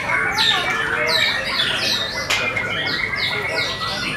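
White-rumped shama (murai batu) song: a fast run of loud, downward-slurred whistles and sharp notes, packed close together, with other birds singing over one another behind it.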